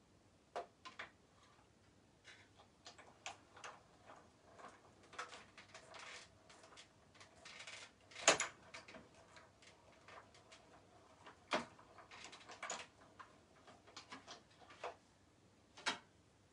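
Irregular clicks and knocks of a metal die and cutting plates being handled and run through a die-cutting machine, the sharpest knock about eight seconds in.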